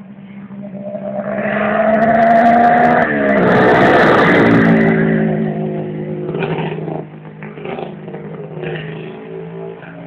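Kawasaki H2A 750SS Mach IV's two-stroke three-cylinder engine on a motorcycle riding past at speed. The engine note climbs as the bike approaches, drops in pitch suddenly as it goes by about three seconds in, then fades as it rides away, with a few short rises in revs.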